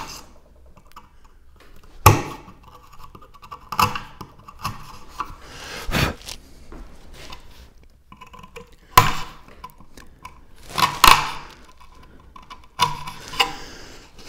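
Thin waste strips being snapped out of sawn slots in Valchromat (dyed fibreboard) panels: a series of sharp cracks a couple of seconds apart, with lighter clicks and scraping between them.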